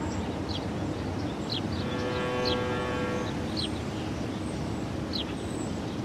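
Steady low rumble of outdoor ambient noise with short, high, falling chirps about once a second, and a brief steady tone with overtones about two seconds in.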